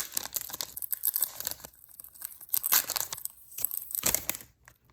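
Foil Pokémon booster pack wrapper crinkling and tearing as it is handled and opened, in irregular crackly bursts.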